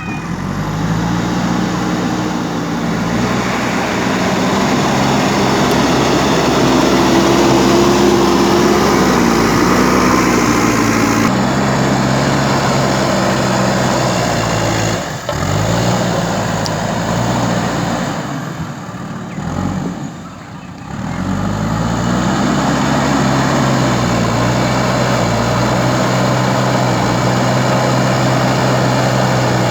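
Backhoe loader's diesel engine running hard as the machine works soil. The revs climb at the start, drop briefly about halfway and again about two-thirds in, then rise and hold steady.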